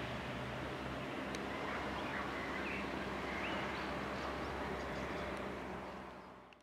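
Diesel engine of a PESA SA134 railbus running steadily as the railcar pulls away, with a bird chirping several times partway through. The sound fades out near the end.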